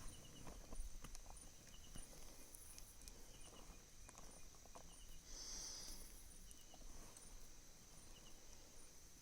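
Night insects calling: a steady high cricket trill with short chirps repeating at an even pace, and a louder buzzing swell about five and a half seconds in. Faint scattered knocks sound underneath.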